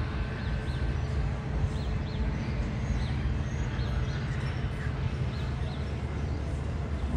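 Steady low rumble of an approaching diesel commuter train, with a few faint, short chirps from small birds now and then.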